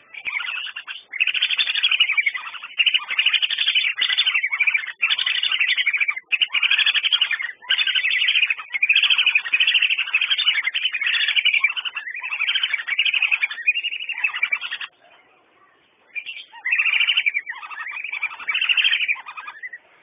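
Whistling ducks calling with rapid runs of high, clear whistles, almost without a break. There is a pause of about a second and a half near the end.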